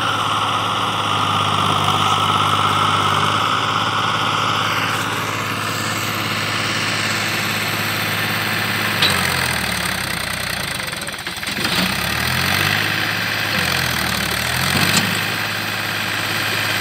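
Mahindra 265 DI tractor's three-cylinder diesel engine labouring under a heavy load, straining to drag a sugarcane-laden trolley stuck in the mud. Its engine speed sags and picks up again twice in the second half.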